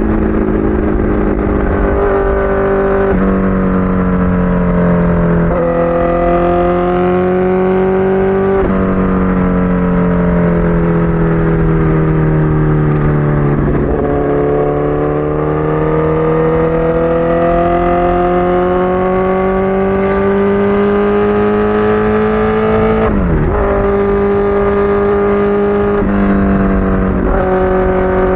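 Honda CBR1000RR Fireblade's inline-four engine running under way, its pitch falling and climbing slowly over several seconds with road speed, with several abrupt steps in pitch at gear changes.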